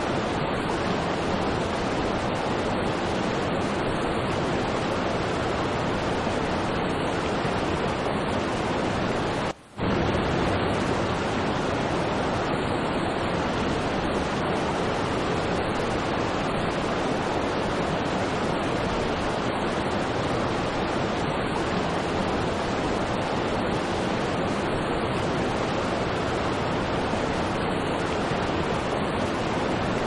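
Steady rushing of a waterfall cascading over rocks into a stream. The sound cuts out for a moment just under ten seconds in, then resumes.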